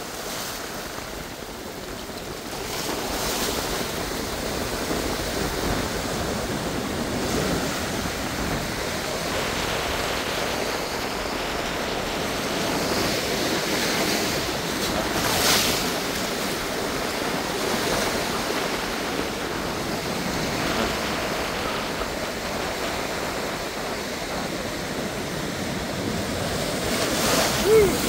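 Pacific Ocean surf breaking and washing over a rocky shore: a steady rush of waves, with louder surges about halfway through and near the end.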